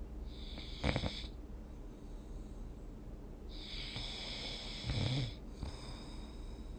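A person snoring in a light doze: two snoring breaths about four seconds apart, each ending in a short low rattle.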